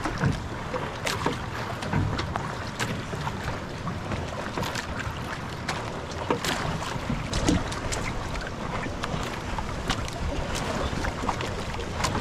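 Wind buffeting the microphone and water lapping against a small outrigger fishing boat, with many light, scattered knocks and clicks.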